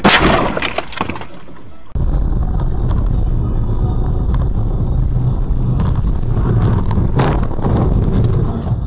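A loud crash impact at the very start, dying away over about two seconds. Then the steady low rumble of a car's engine and road noise heard from inside the car, with a brief louder knock near the end.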